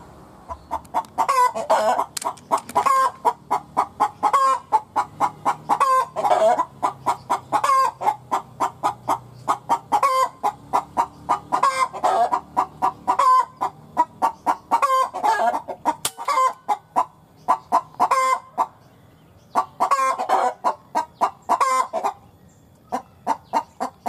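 An animal giving a rapid series of sharp clucking calls, several a second, in long runs with a short break near the end.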